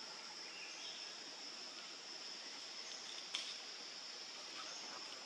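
Steady high-pitched drone of a forest insect chorus, with one sharp click a little past three seconds in.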